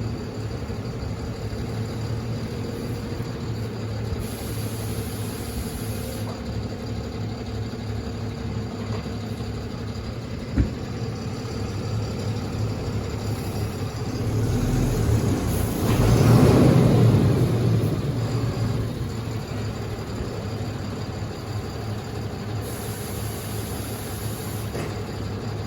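A farm vehicle's engine running steadily, swelling louder for a few seconds about two-thirds of the way through, with a single sharp click near the middle.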